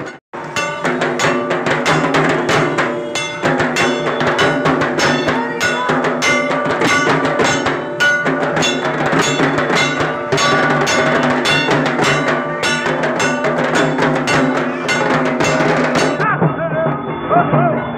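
Dhak drums beaten in a fast, steady rhythm with clanking metal percussion over it. The sound cuts out for an instant just after the start, and near the end it turns duller.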